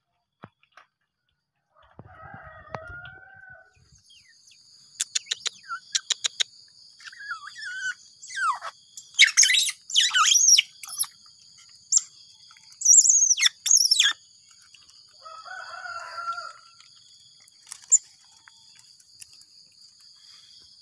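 A two-month-old otter pup calling with shrill, high-pitched chirps and squeals, in loud clusters through the middle, while it is handled.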